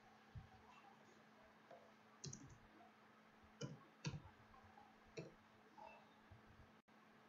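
Faint, scattered clicks of computer keyboard keys and a mouse, about five separate clicks with the loudest near the middle.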